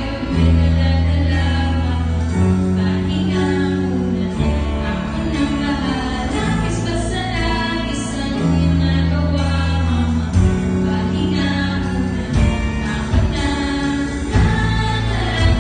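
Live band playing a ballad with female vocals singing the melody; sustained low bass notes change every second or two under the voices, with cymbal strokes now and then.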